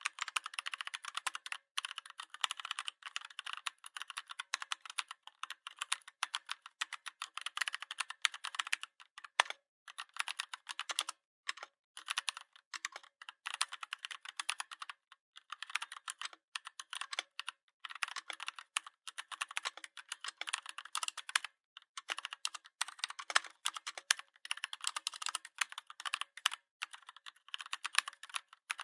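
Rapid typing on a computer keyboard: a dense run of key clicks with brief pauses between bursts.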